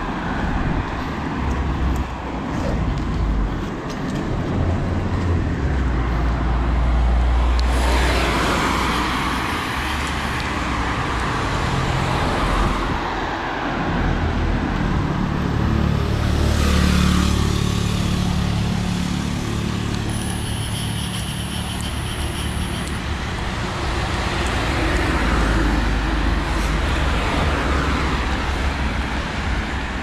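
Road traffic: cars passing one after another, the rumble swelling and fading several times, with a brief high-pitched whine about twenty seconds in.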